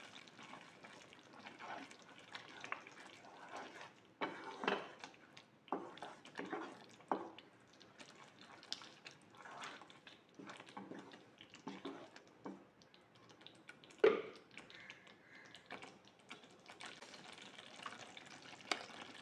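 Chilli sambal simmering in oil in a non-stick wok, the thick sauce popping and plopping in small irregular bubbles, with a wooden spatula stirring through it partway through. One sharper knock about two-thirds of the way in.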